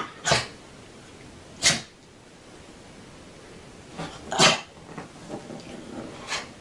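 A pet making four short, breathy noise bursts, a second or more apart, with faint smaller sounds between them.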